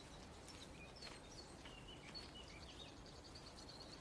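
Faint outdoor ambience with small birds chirping softly. A thin, high, rapid trill runs through the second half.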